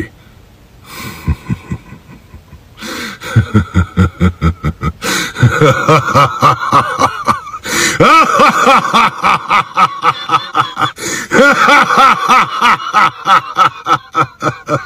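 A man's drawn-out laugh, a villain's dubbed line delivery. It starts low after a few quiet seconds, then rises into a loud, rhythmic run of laughter that keeps going.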